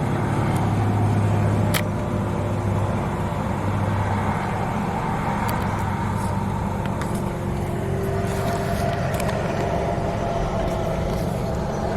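Car engine running at low speed, a steady low hum, with a single sharp click about two seconds in.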